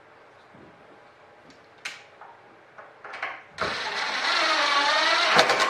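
Cordless drill-driver running for about two seconds as it drives a fastener through a wooden hold-down block, its pitch sagging under load, after a few light knocks as the block is set in place.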